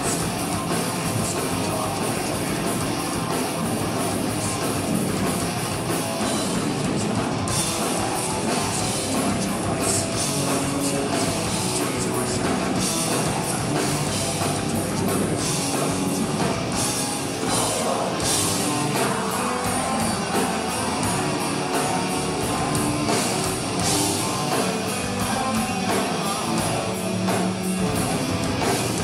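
Melodic death metal band playing live at full volume: distorted electric guitars with drums and cymbals, heard from within the audience.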